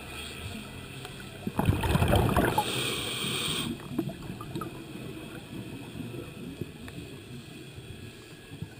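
Scuba diver breathing through a regulator underwater: a loud burst of exhaled bubbles about a second and a half in, then the hiss of an inhalation for about a second, followed by scattered faint clicks.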